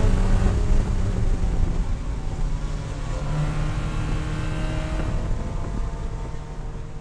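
Spec Miata race car's four-cylinder engine heard from inside the cabin, running at high revs on the straight. Within the first couple of seconds it drops off as the car lifts and slows for a corner, then runs on at lower, steadier revs and gets quieter near the end.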